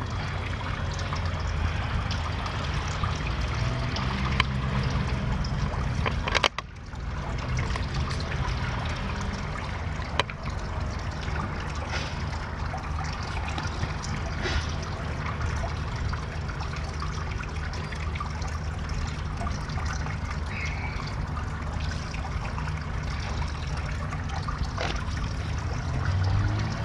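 Water trickling and splashing steadily into a garden pond.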